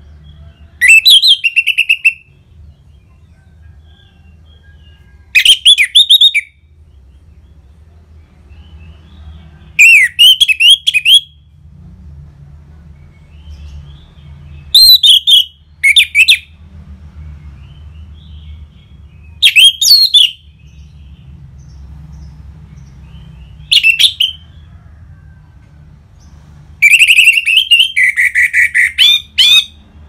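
Orange-headed thrush singing: seven loud phrases of quick, varied, fluting whistled notes, each about a second long and coming every four to five seconds, the last one near the end longer at about three seconds. A faint low hum runs underneath.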